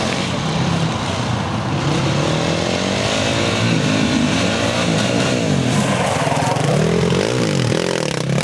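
A 450cc single-cylinder quad bike engine revving up and down as the quad is ridden through stunts. Its pitch rises and falls repeatedly, with several quick blips near the end.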